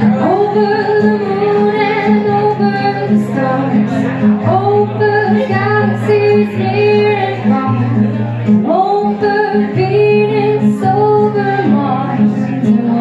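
A woman singing solo over her own strummed acoustic guitar, live: sung phrases of long held notes over steady guitar chords.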